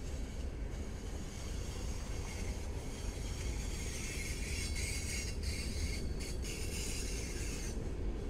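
Freight train rolling past behind diesel locomotives: a steady low rumble with a high squealing hiss of steel wheels on rail that builds from about two seconds in.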